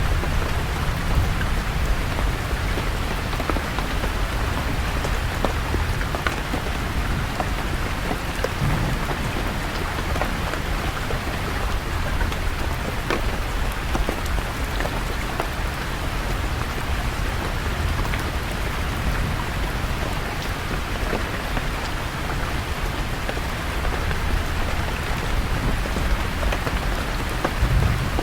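Steady rain falling, with many separate drops ticking close by, over a low rumble of distant thunder.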